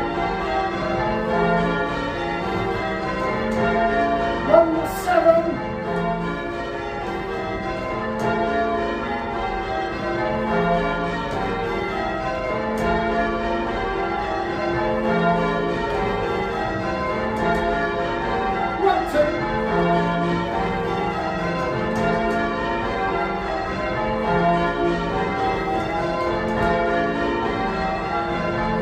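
A ring of eight church bells, a 1937 Gillett & Johnston octave with two 1750 Thomas Wroth bells and a tenor in F, rung full-circle, each bell striking in turn in a steady repeating pattern. The deep tenor comes round every couple of seconds. Two brief sharp sounds cut in about five seconds in and again near nineteen seconds.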